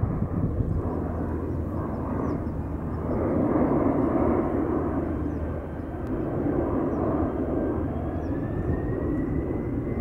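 Boeing 747-400's four turbofan engines running as the jet begins its takeoff, heard across open ground as a steady rumble that swells twice. A faint whine rises in pitch about eight seconds in.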